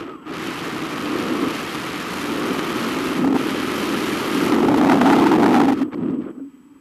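Wind rushing over the microphone of a camera on a hang glider in flight: a steady, rumbling rush that swells and eases, dropping away sharply near the end.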